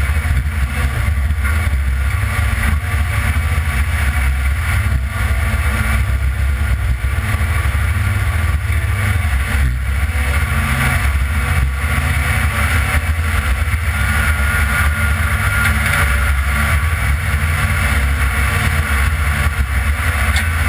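1982 Ford F-150 being driven off-road, its engine running steadily as a continuous deep drone.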